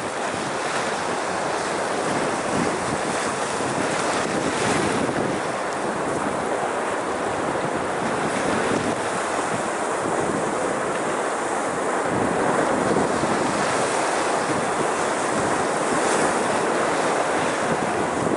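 Sea surf washing in and swirling around shoreline rocks, a steady wash of water that swells briefly about four seconds in and again near sixteen seconds.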